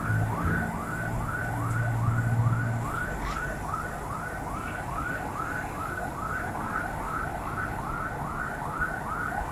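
Electronic siren in yelp mode: rapid rising wails repeating about three times a second without a break.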